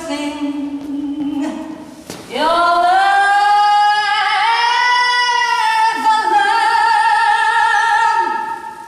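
A woman's solo voice singing wordlessly: a low note, then a swoop up to a long high note held for several seconds with a slight waver, fading out near the end.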